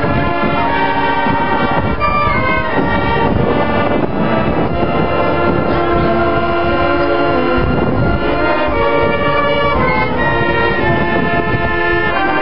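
Marching band brass playing loud, sustained chords close by, the notes shifting every second or so.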